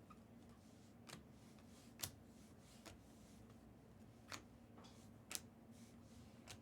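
Trading cards being handled: about six sharp, irregular clicks, roughly a second apart, over a quiet room.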